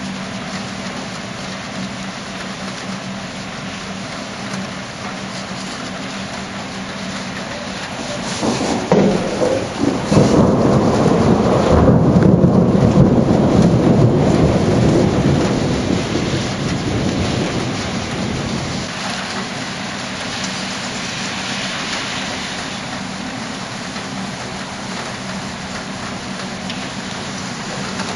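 Steady rain with a clap of thunder. Sharp cracks come about nine and ten seconds in, then a long, loud rumble that peaks a few seconds later and dies away by about nineteen seconds.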